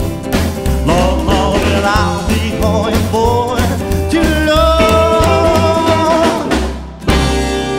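Rock-and-roll band music with no words: guitar, bass and drums play bending lead lines, then a long held note, and a sharp loud accent hits about seven seconds in.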